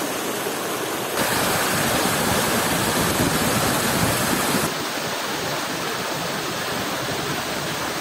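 Mountain waterfall pouring over rocks: a steady rush of water that gets louder about a second in and drops back a little just past the middle.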